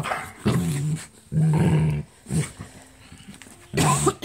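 Dogs play-growling while wrestling: about four separate growls with short pauses between, the second the longest and one near the end brief and sharp.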